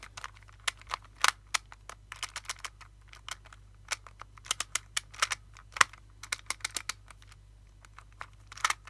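Rubik's Clock being solved at speed: its dials turned in quick runs of sharp, irregular clicks, several a second.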